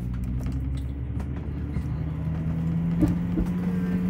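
Engine and road noise heard inside a moving motorhome's cabin: a steady low hum. A low engine note comes in about two seconds in and climbs slightly, and there are a couple of light knocks a little after three seconds.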